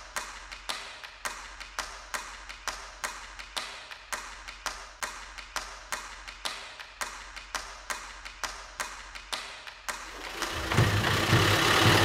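Clock-like ticking, about two sharp ticks a second. About ten seconds in, it gives way to a louder Land Rover Defender engine idling.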